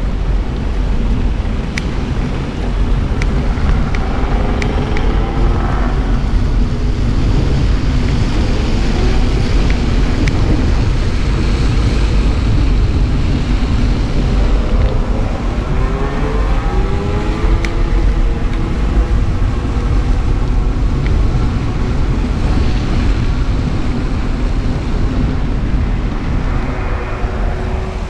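Wind rumbling on a handlebar-mounted GoPro's microphone as a bicycle rides over town streets. Twice a rising pitched tone comes through the rumble, about four seconds in and again about sixteen seconds in.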